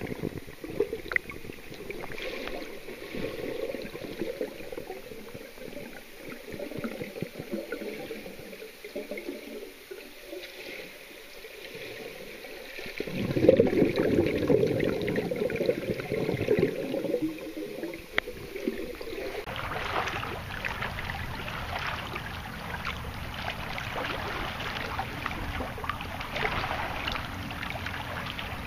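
Lake water sloshing and gurgling around a submerged waterproof camera, uneven and without any steady tone. It swells about halfway through, then turns to a lighter, hissier splashing for the last third.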